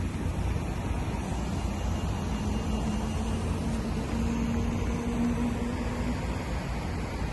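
Steady wind rumble on the microphone outdoors, with a faint low hum running underneath.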